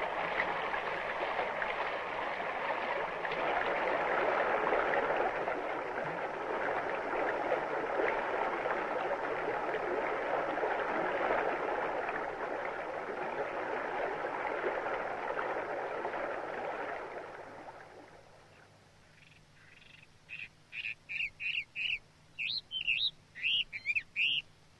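Rushing stream water, a steady hiss, that fades out about three quarters of the way through. Near the end comes a quick run of about a dozen short, high bird chirps.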